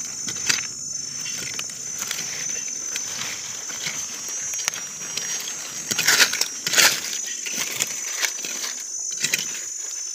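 A stick scraping and poking through dry leaf litter and soil, making irregular rustles and scratches, with a couple of louder scrapes about six and seven seconds in. Insects keep up a steady high drone behind it.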